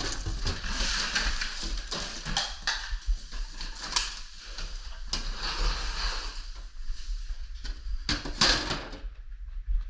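Refrigerator being cleared out by hand: irregular scraping and rustling with sharp knocks and clatter, the loudest about four seconds in and again near the end.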